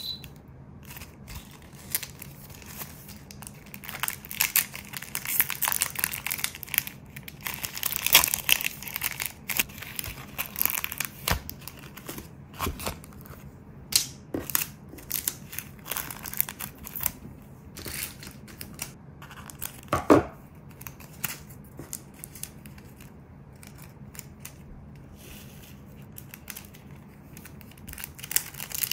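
Thin plastic rhinestone packaging crinkling and rustling in the hands, in irregular bursts with small clicks and one sharper knock about two-thirds through. After a quieter few seconds, more crinkling near the end as the rhinestones are tipped out of a small plastic bag.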